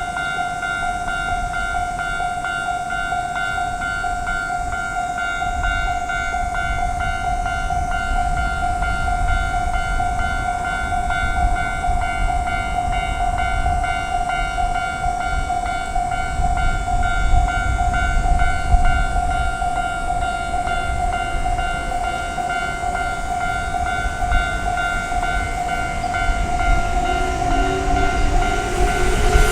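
Japanese level-crossing warning bell ringing steadily in a quick, even repeating beat. Underneath, the low rumble of an approaching train grows, getting louder near the end.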